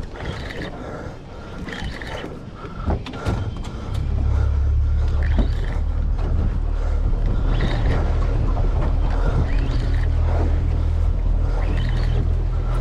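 A boat engine starts running about four seconds in and keeps up a steady low drone. Before it there is wind and water noise with a few sharp knocks.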